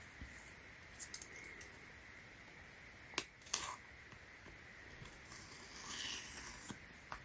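Small objects and packaging of a bicycle tire repair kit being handled: a few sharp clicks and taps about a second in and again around the middle, then a soft rustle near the end.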